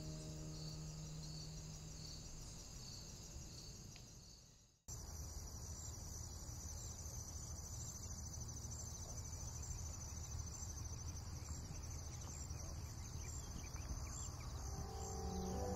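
Steady high-pitched insect chirping, pulsing a couple of times a second. About five seconds in it cuts off abruptly and is replaced by a denser insect chorus over a low steady rumble.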